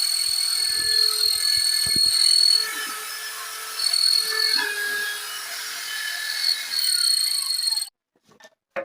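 Electric power tool running on wood with a steady high whine that swells and eases as it takes load, then cuts off abruptly near the end.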